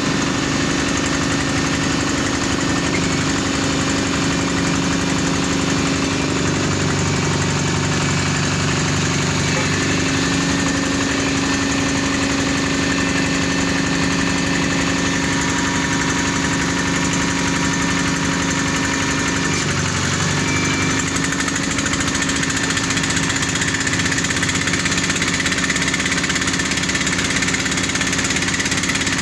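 Engine of a small water-well drilling rig running steadily under drilling load, an even pulsing mechanical hum.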